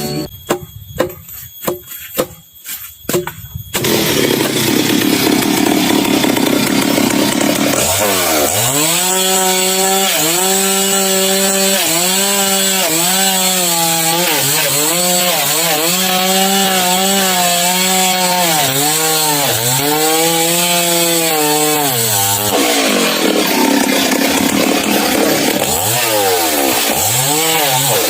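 A few sharp knocks, then a two-stroke chainsaw running at high revs while ripping lengthwise along a log. Its pitch repeatedly sags and recovers as the chain loads up in the cut, and it revs up and down near the end.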